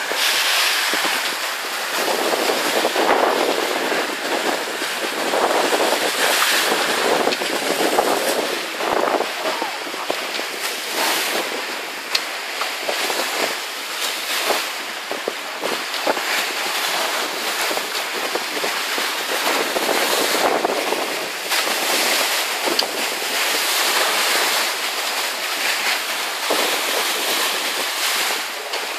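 Wind buffeting the microphone over the rush of water past the hull of a sailing boat moving fast through waves, rising and falling in gusts.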